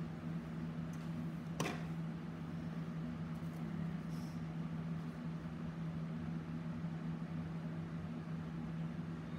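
A steady low electrical or mechanical hum, like a fan or appliance running, with one sharp tap about a second and a half in.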